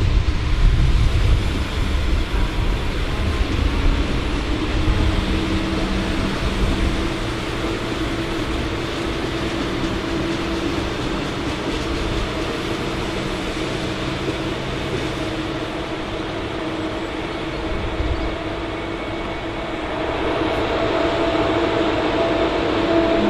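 Train running through the station: a heavy low rumble of wheels on rails that eases after about seven seconds, with steady humming tones setting in from about four seconds in.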